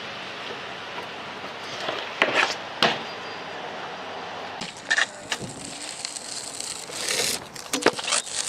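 Skateboard wheels rolling on hard ground, with sharp wooden clacks of the board a few times and a quick cluster of them near the end.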